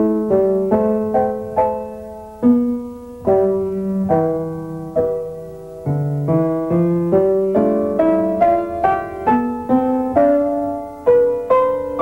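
Piano music: a slow melody over chords, each note struck and left to fade.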